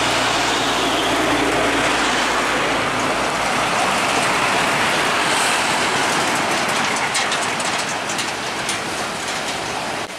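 A truck towing a trailer passing close by: engine and tyre noise, with a low hum that fades after the first few seconds. A run of rattling clicks comes in the second half, as the trailer goes by.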